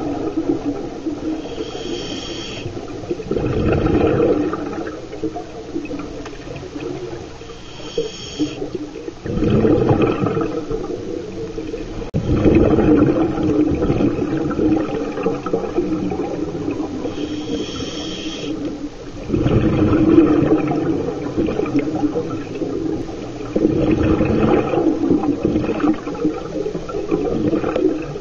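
Scuba diver breathing through a regulator underwater: a short hissing inhalation, then a longer, louder rush of exhaled bubbles, repeating every several seconds.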